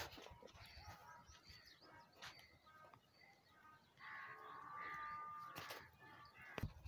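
Faint bird chirps and calls, with a longer, louder call about four seconds in that lasts over a second; a few short clicks.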